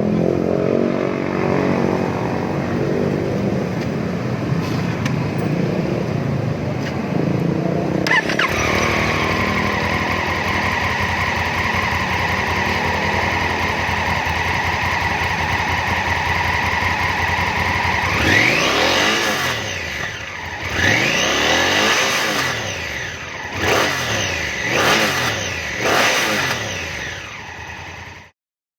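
Honda Africa Twin parallel-twin engine running through its stock exhaust, idling steadily, then from about halfway on revved in several throttle blips, each rising and falling in pitch.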